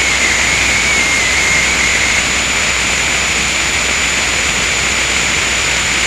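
Harsh noise music: a loud, dense wall of hiss with a steady thin high whine. A lower, wavering tone rides on top and drops out about two seconds in.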